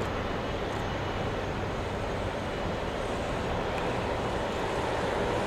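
Jet airliner engines running at taxi power: a steady rushing drone that grows slightly louder near the end.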